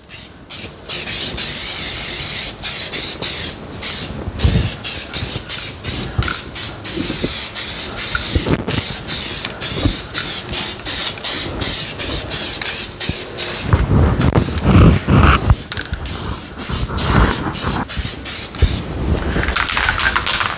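Masking tape being peeled off freshly painted car body molding: a loud crackling rip that comes in stretches broken by many short pauses, with a few dull knocks from handling about two-thirds of the way through.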